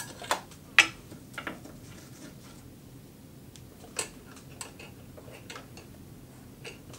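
Scattered sharp clicks and taps of a snap-on presser foot and its metal and plastic fittings being handled at the needle area of a Singer Heavy Duty sewing machine, the loudest click just under a second in and another about four seconds in.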